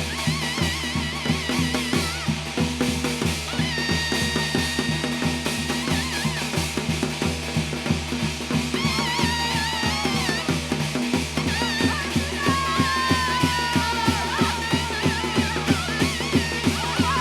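Korean shamanic ritual music: fast, steady drumming with a wavering melody line that slides and bends over it.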